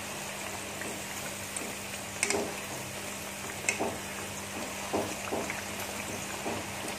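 Spinach pakoras frying in a wok of hot oil: a steady sizzling hiss. A few light metal clicks from the steel wire skimmer and fork as the pakoras are lifted out.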